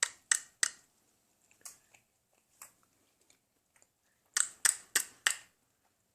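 A person making short, sharp clicks in quick runs: three at the start, two faint ones, then four in a row about four and a half seconds in.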